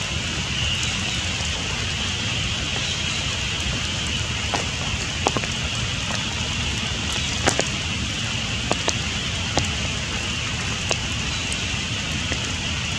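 Steady rain falling, with scattered sharp ticks of single drops landing close by.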